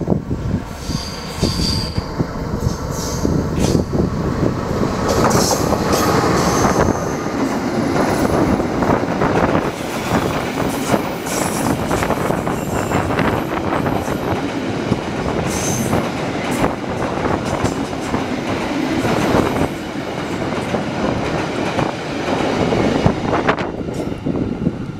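Freight train of Pertamina fuel tank wagons hauled by a KAI diesel locomotive, passing close on a curve. The wheels clatter steadily over the rails, with a few brief high-pitched wheel squeals.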